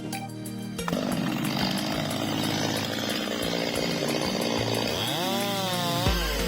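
Chainsaw running and cutting through wood, starting about a second in; from about five seconds in its engine pitch swings up and down.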